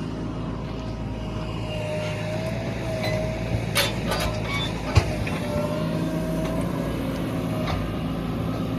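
Heavy diesel engine running steadily under a wavering whine, with a few clanks in the middle and one sharp knock about five seconds in.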